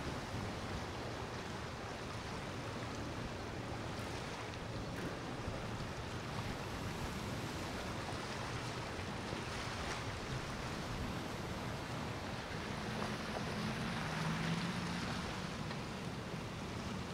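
Steady wash of water and wind on the microphone, with a passing boat's low engine drone coming in about three-quarters of the way through.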